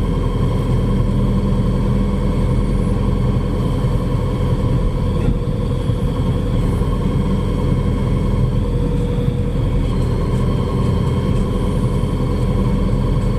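Xinyuan C80W wheeled excavator's diesel engine running steadily, with a faint high whine over it.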